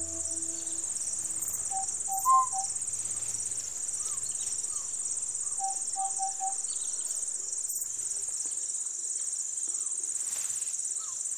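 Steady, high-pitched chorus of insects, pulsing finely, with a few soft bird calls: one louder chirp about two seconds in and two short runs of four quick notes.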